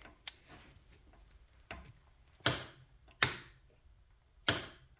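Click-type torque wrench set to 80 foot-pounds breaking with a sharp click, again and again, as it reaches its setting while tightening a rifle action onto its barrel: four loud clicks about a second apart, with a fainter one between the first two.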